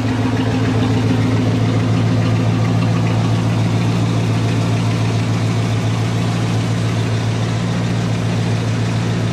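1986 Chevy C10 pickup's engine idling steadily, a nice little exhaust rumble heard from beneath the truck.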